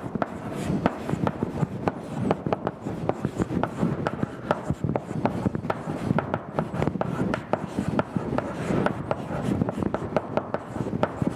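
Chalk writing on a blackboard: a steady run of quick taps and scratches as words are written out by hand.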